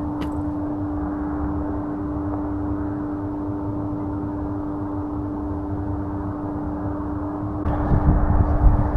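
Steady wind noise rumbling on the microphone, with a constant low hum under it. The wind grows louder and gustier near the end.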